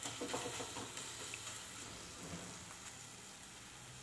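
Thick wheat chik faintly sizzling in a nonstick pan on the stove. A few strokes of a wooden spatula scrape through it in the first second, then a low, steady frying hiss.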